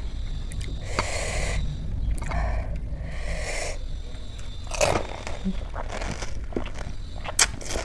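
Close-miked eating of pani puri: the crisp hollow puri shells crunching and being chewed, with moist mouth clicks. Two longer breathy noises come in the first four seconds, then a run of sharp crunches and clicks.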